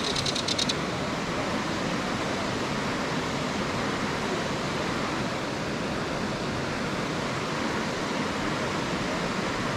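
Steady rushing of river water over a riffle. A brief run of fast ticks at the very start.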